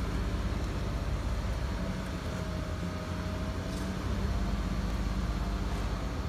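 2005 Ford Five Hundred's 3.0-litre V6 engine running, heard from inside the cabin as a steady low hum, with a faint high whine over it.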